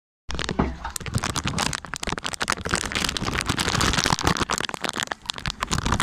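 Phone microphone handling noise: fingers gripping and rubbing over the phone give a dense crackle of rustles and small clicks. It starts abruptly just after the beginning.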